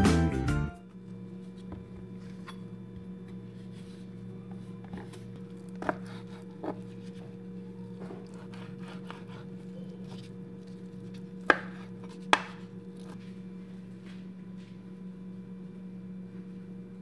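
A knife cutting raw chicken breast into cubes on a plastic cutting board: soft slicing with scattered knocks of the blade on the board, the two loudest about halfway in, over a steady low hum. The last notes of an intro jingle end within the first second.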